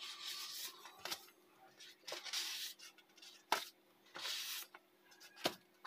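Sheets of printed sticker paper rustling as they are handled and shuffled, in a few short swells, with three brief sharp clicks along the way.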